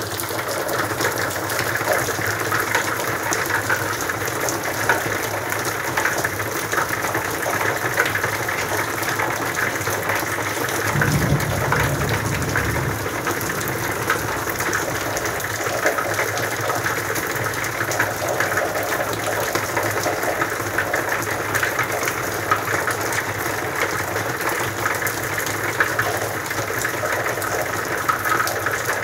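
Steady rain falling, a dense even hiss of drops. A brief low rumble comes in about eleven seconds in.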